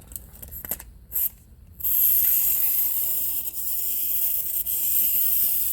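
Small clockwork wind-up toy cars: a few clicks, then about two seconds in their spring motors are let go and whir steadily with a high buzzing hiss.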